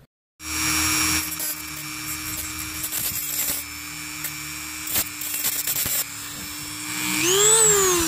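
Dremel rotary tool with a cutoff wheel running at steady speed, cutting slots into the heads of seized fuel-injector retaining screws on a fuel rail so they can be turned with a screwdriver. Near the end its whine climbs in pitch and then falls away.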